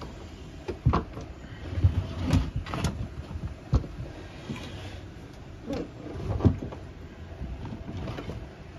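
Handling noise: several irregular knocks, clunks and scrapes of things being picked up and moved by hand, with no engine running.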